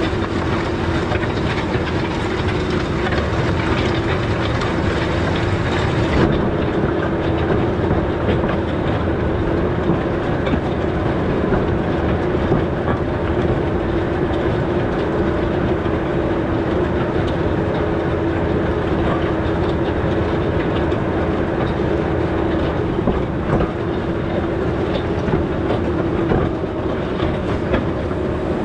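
Large farm tractor working in the field, its engine running steadily under load with a continuous rattle of machinery over a constant hum.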